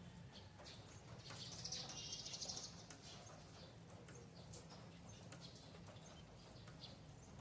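Faint outdoor ambience with a brief trilling bird call about one and a half seconds in, and scattered small clicks over a low hum.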